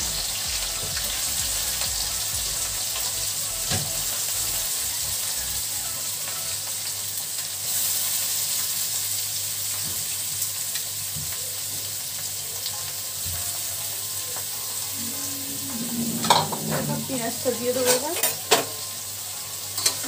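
Chopped onions sizzling in hot mustard oil in an aluminium kadai, a steady hiss. Near the end a metal ladle stirs them, scraping and knocking against the pan several times.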